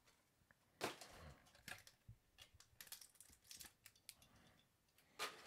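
Faint crinkling, crackling and clicking of a toy car's plastic blister package being handled and opened, with a few sharper snaps about a second in, near two seconds and near the end.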